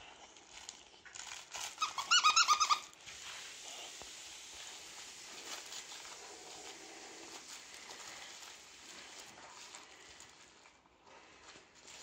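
Boxer dog playing with a plush toy monkey, mouthing and pushing it. About two seconds in there is a quick run of six or seven high squeals, then only soft, low-level sound.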